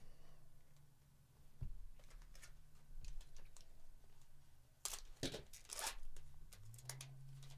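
Wrapper of an Artifacts hockey card pack being torn open and crinkled as the cards are pulled out. Scattered crackling rustles build to the loudest burst about five to six seconds in.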